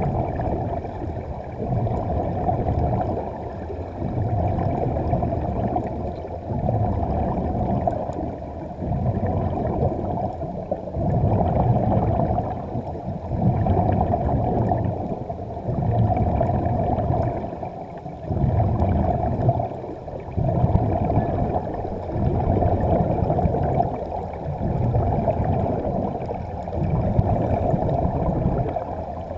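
Underwater bubbling and rushing of divers' air, swelling and fading about every two seconds, heard through the camera's underwater housing.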